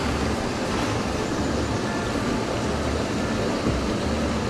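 Water of a small mountain trout stream rushing close by: a steady noise with a low rumble that comes and goes.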